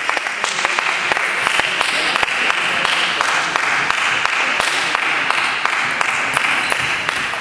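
Table tennis rally: the ball clicks sharply off paddles and table again and again, over a steady, dense background noise of the hall.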